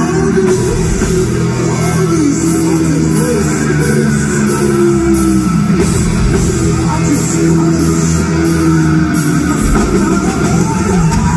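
Heavy metal band playing live, heard from the audience: electric guitars and a drum kit, loud and continuous.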